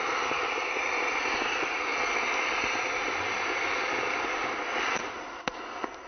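Diwali firework rockets strapped to a ceiling fan burning, giving a steady, crackling hiss that fades about five seconds in, followed by two sharp snaps near the end.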